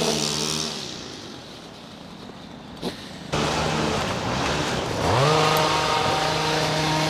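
Small engine of tree-cutting machinery running in the background. It fades about a second in, cuts back in abruptly a little after three seconds, and revs up to a steady, higher note about five seconds in.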